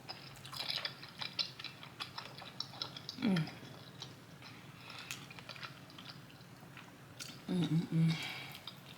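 Close-miked eating sounds: rapid wet clicks and smacks of chewing creamy, sticky cheese-sauce ramen noodles. A short low hummed 'mm' comes about three seconds in and again near the end.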